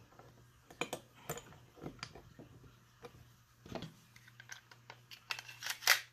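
Scattered clicks and clacks of a Glock 19 Gen 4 pistol being reassembled by hand, its slide going back onto the frame, with the loudest sharp clack near the end.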